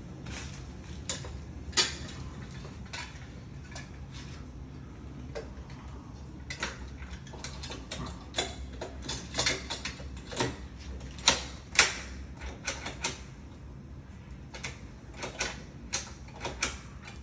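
Irregular metallic clicks and clacks of mortise lock hardware being worked, coming more often in the second half, over a low steady hum.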